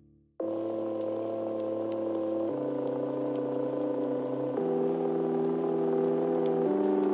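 Background music: a new track begins about half a second in with sustained chords of held tones that change to a new chord about every two seconds.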